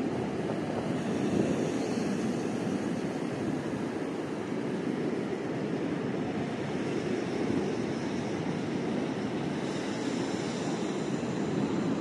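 Ocean surf: a steady rush of waves breaking and washing over the sand.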